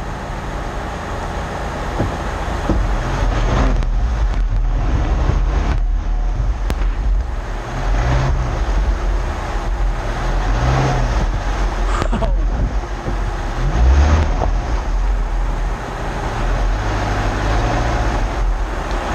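Subaru Crosstrek's flat-four boxer engine pulling the car slowly over a rough dirt trail, its revs rising and falling several times over a steady low rumble of tyres and body noise.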